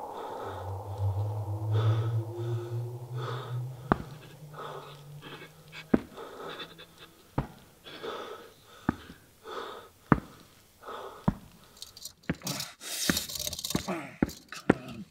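A person panting heavily, with a low hum underneath in the first half. Sharp knocks come roughly every second and a half and crowd together near the end, with a burst of hiss.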